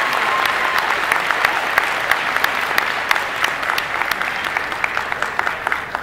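A large audience applauding, dense clapping that dies away near the end.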